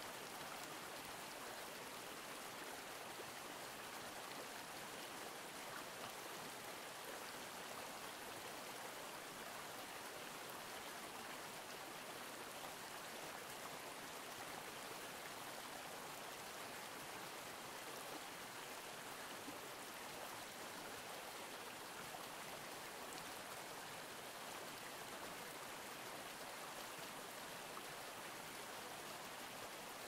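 Steady running water of a small stream, an even rushing with no breaks.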